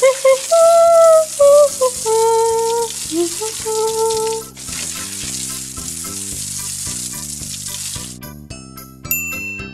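Steady hiss of water pouring from a small toy watering can, over cheerful background music. The hiss breaks off for a moment about halfway through and stops about eight seconds in, where bell-like notes take over the music.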